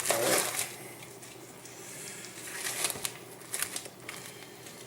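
Soft rustling with a few sharp clicks of hands handling things on a work surface, the clicks bunched together past the middle.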